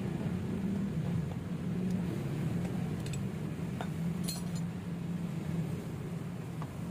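A steady low mechanical hum, with a few light metallic clinks, as of small metal parts or tools, between about three and four and a half seconds in.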